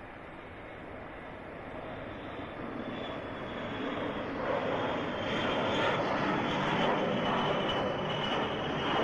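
An aircraft approaching, its engine noise growing steadily louder, with a high thin whine coming in about three seconds in.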